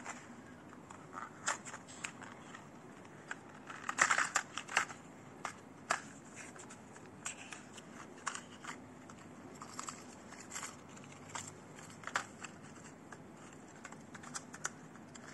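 Clear plastic and cardboard lure box being handled on a wooden desk: scattered crinkles and small clicks, with a cluster of louder crackles about four seconds in.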